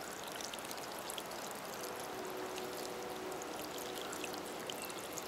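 Water running steadily out of the open, cut end of a line of drip tape onto the soil, as the line is flushed of dirt before its end cap goes on.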